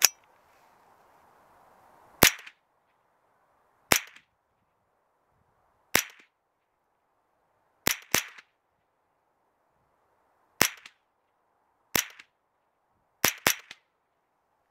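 Kriss Defiance DMK22 semi-automatic .22LR rifle firing RWS semi-auto rounds, about ten single sharp shots one to two and a half seconds apart, including two quick pairs near the middle and near the end.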